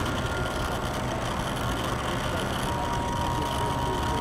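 Radio-controlled model boat motor whining steadily over a constant hiss of outdoor noise, the whine shifting lower about two thirds of the way through.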